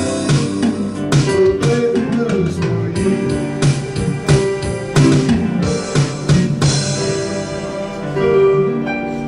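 Live blues band playing instrumentally, an electric guitar leading over drums and backing notes. The drum hits drop out about seven seconds in, leaving held notes ringing as the tune winds down.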